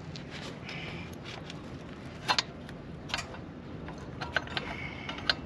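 Small metallic clicks and taps as brake pads and their spring retaining clip are worked by hand into a motorcycle's rear brake caliper, with a sharper click about two seconds in and a run of quick clicks near the end.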